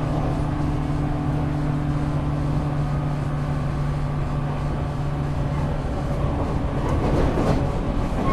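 Interior running sound of a JR West 475-series express-type EMU motor car. Its MT54 traction motors give a steady hum that fades out about five seconds in, and louder rail clatter follows near the end.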